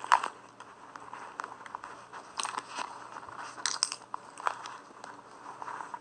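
Slime being squeezed and worked by hand, making irregular small clicks and crackles.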